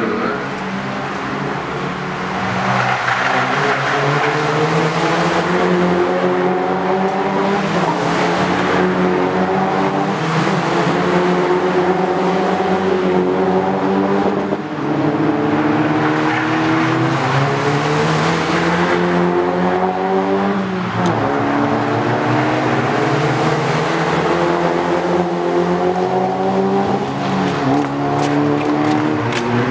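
A pack of Toyota Vios Challenge racecars accelerating hard away from the race start and streaming past. Their engines rev up through the gears in many overlapping rising notes that fall back at each upshift.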